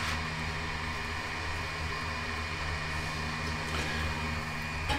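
Steady hum of a Master Blaster blower fan forcing air into the ugly drum smoker's lit charcoal, with a light click near the end.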